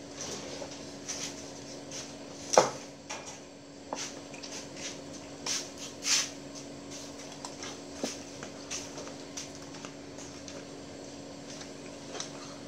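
Scattered knocks and clicks over a steady hum, one much louder knock about two and a half seconds in.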